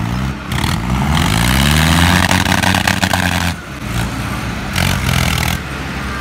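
Diesel tractor engines revving hard as the tractors drive past. The pitch climbs over the first two seconds, holds, then falls away about three and a half seconds in, and the engines keep running steadily after that.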